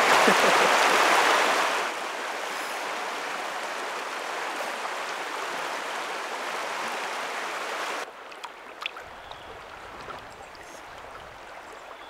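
River water rushing over a shallow gravel riffle, loudest for the first two seconds. About eight seconds in it cuts to a quieter, calmer flow with a faint low rumble and a few small ticks.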